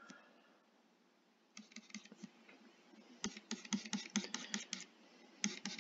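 Faint, rapid, irregular tapping and clicking of a stylus on a graphics tablet while quick hatching strokes are drawn. It starts about a second and a half in and grows denser partway through, at several taps a second.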